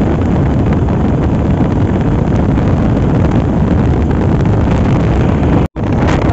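Loud, steady wind rumble on the microphone. The sound drops out completely for a split second near the end.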